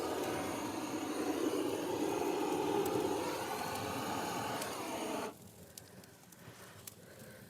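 A steady rushing noise that cuts off suddenly about five seconds in, leaving a few faint crackles from a small fire in a fireplace.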